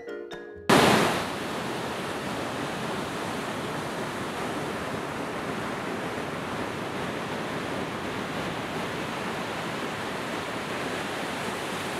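Ocean surf washing onto a sandy beach, a steady continuous rush of breaking waves that cuts in suddenly just under a second in, as a few vibraphone notes end.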